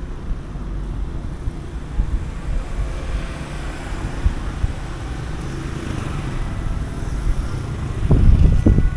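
Street traffic noise with wind buffeting the microphone, a steady low rumble that swells louder for a moment near the end.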